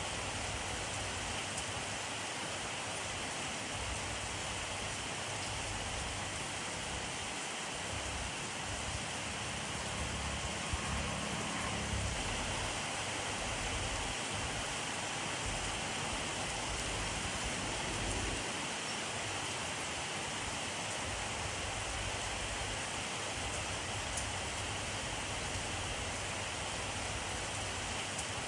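Steady rainfall: an even hiss of rain falling on surfaces.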